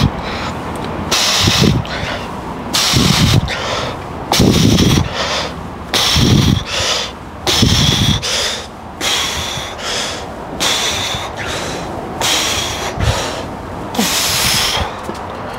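Heavy, forceful breathing of a man doing barbell back squat reps: a sharp breath in and out about every second and a half. Each breath is heavier and more explosive in the first half.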